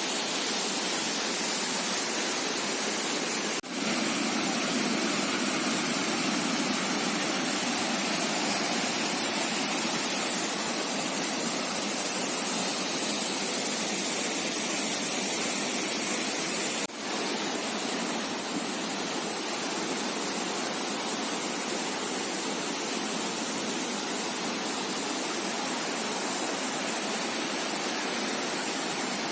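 Steady rushing of a small waterfall carrying little water, an even hiss of falling water that dips for an instant twice, about 4 and 17 seconds in.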